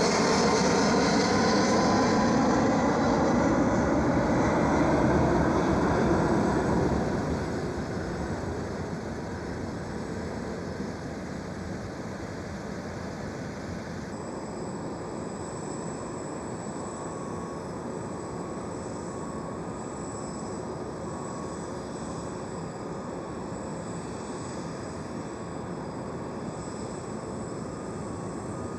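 Jet aircraft engines passing close by, loud with whining tones that bend in pitch, then fading after about seven seconds to a steady distant jet rumble.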